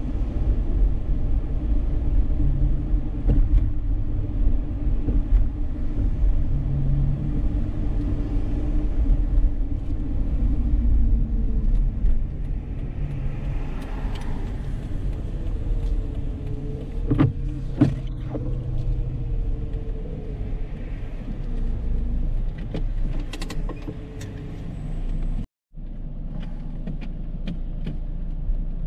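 Steady low rumble of road and engine noise from a Dodge Charger 3.5 on the move, with a couple of light knocks about two-thirds of the way through. The sound cuts out for an instant near the end.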